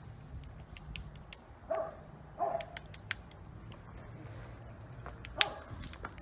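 A dog barking three short times, over scattered light clicks and a low steady rumble.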